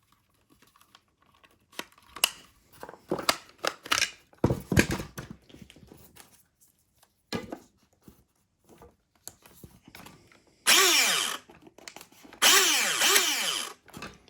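Clicks and handling knocks, then two short bursts of an airsoft electric gun's motor whirring as the trigger is pulled. The owner, finding the motor screw missing, suspects stripped gears.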